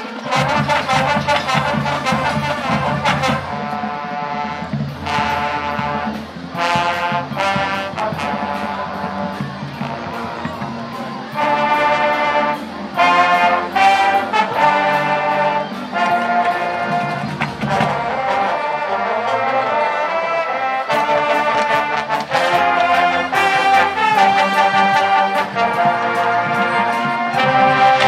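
High school marching band playing: brass (trumpets, mellophones, trombones, sousaphones) and saxophones in loud chords and short accented notes, over the hits of a marching drumline.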